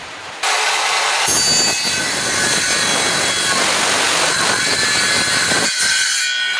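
INGCO handheld circular saw switched on about half a second in, then cutting through a wooden plank: a steady high motor whine over the rasp of the blade in the wood. Near the end the blade leaves the wood and runs free.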